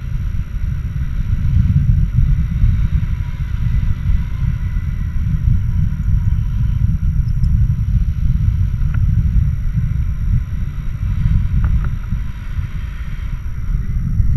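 Wind rushing over the camera's microphone in tandem paraglider flight: a loud, steady low rumble.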